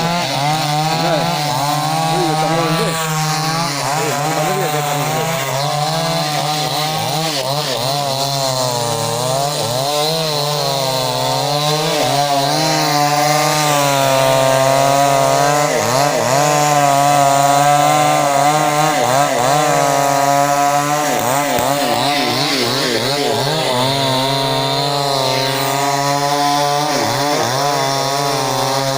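X-Power 52cc two-stroke chainsaw running hard while cutting wood, its engine pitch wavering up and down throughout and a little louder around the middle.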